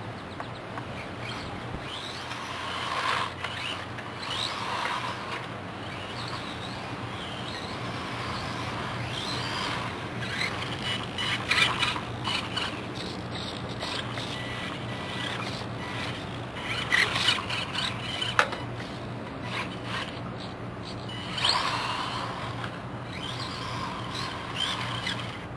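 Team Losi Micro Desert Truck, a small electric RC truck on a 7.4-volt lithium battery, driving on concrete: the motor whine and tyre scrub swell several times as it passes near and fades as it moves off. A steady low hum runs underneath.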